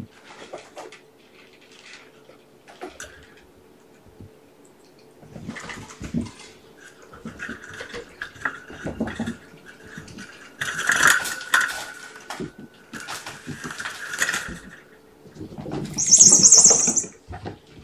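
Kittens scampering and tussling among cat toys: irregular bursts of scuffling paws, thumps and clattering, loudest near the end.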